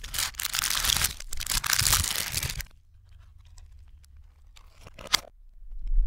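Paper liner crinkling and rustling over fried chicken wings in a cardboard takeout box, played in reverse. It is loud for the first two and a half seconds, then gives way to quieter handling of the box. A sharp click comes about five seconds in, and a sound swells up at the very end.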